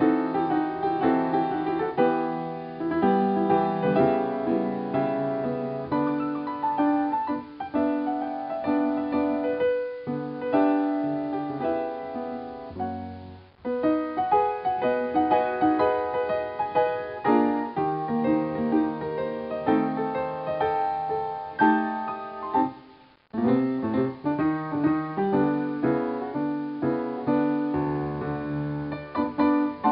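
Solo piano playing a lively run of notes as silent-film accompaniment, breaking off briefly twice, about halfway through and again a few seconds later.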